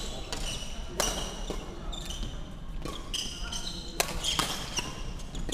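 Badminton rally: sharp racket strikes on the shuttlecock, the loudest about a second in and about four seconds in, with shoes squeaking on the wooden court floor, all echoing in a large sports hall.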